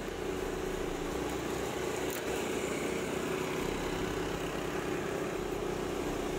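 Motor scooter engine running steadily under load on an uphill climb, a constant drone with no breaks. The scooter is struggling with the gradient and barely climbing.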